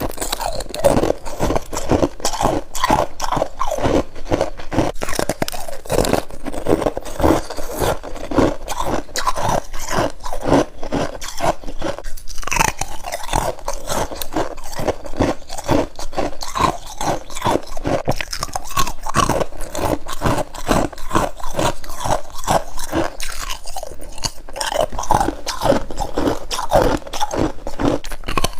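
A person biting and chewing freezer frost: dense, rapid crunching that goes on without a break.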